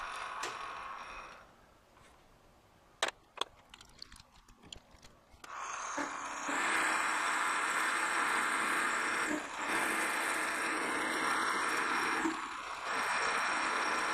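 Metal lathe running, then the spindle stalls about a second and a half in, going quiet apart from a few sharp clicks: a metal chip wedged at the cut, not the cut itself, caused the stall. About five and a half seconds in the lathe runs again with a steady cutting hiss, dipping briefly twice.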